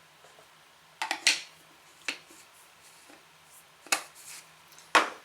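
A few sharp clicks and taps from makeup compacts and tools being handled and set down, about four in all, the sharpest near the end.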